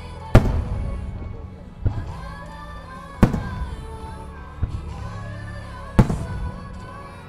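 Aerial firework shells bursting in the sky, five booms about a second and a half apart, each trailing off in an echo; the one about a third of a second in is the loudest. Music plays underneath.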